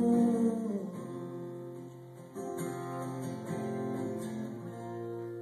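Solo acoustic guitar playing the song's closing bars. The ringing notes die down over the first two seconds, then a last strummed chord rings out.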